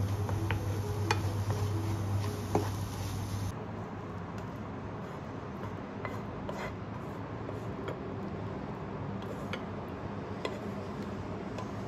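Wooden spatula scraping and tapping against a nonstick pan as cooked mushrooms and scrambled egg slide into a bowl, with scattered light clicks. A low steady hum stops about three and a half seconds in.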